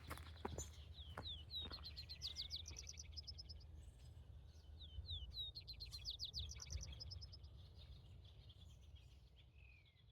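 A songbird singing two phrases of quick, repeated high notes, about a second in and again about five seconds in, over a low steady rumble of wind. A few footsteps sound in the first second.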